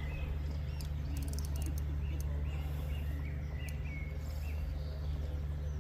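A small bird chirping: a run of short, repeated chirps, about two to three a second, that fade out past the middle. Under it is a steady low outdoor rumble.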